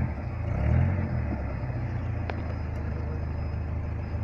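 Off-road 4x4 vehicle's engine revving up and back down briefly, then running at a steady low speed.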